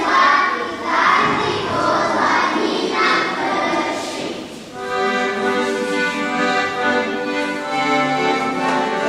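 Children's choir singing a folk song, giving way about five seconds in to instrumental music with long held, chord-like notes.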